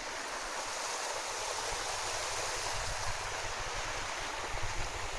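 Waterfall on a creek: rushing water making a steady, even hiss. Some low wind rumble on the microphone comes in near the end.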